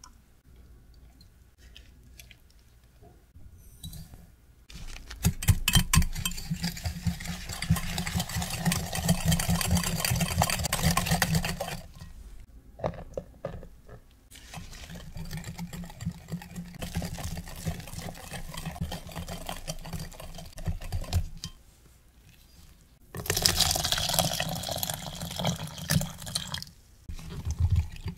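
Wire whisk beating egg yolks and sifted cornstarch in a glass Pyrex measuring jug for the corn custard cream: fast scraping and rattling in two long loud spells, with a quieter spell of powder being sifted in between. The first few seconds are faint, with eggs being separated.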